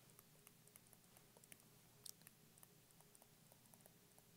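Near silence with faint, scattered light ticks of a pen writing.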